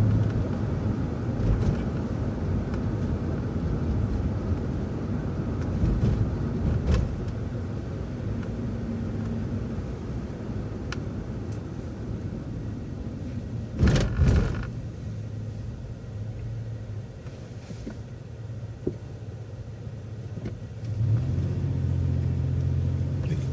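City transit bus engine running, heard from inside the bus while it drives, with one loud brief rattle about fourteen seconds in. The engine eases off for a few seconds afterwards, then pulls harder again near the end.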